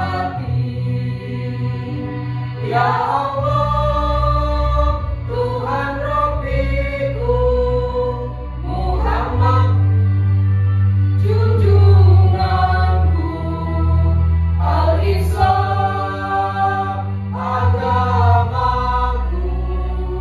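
Elementary-school children's choir singing in unison over an instrumental accompaniment with a steady bass line, holding long notes that change every second or two.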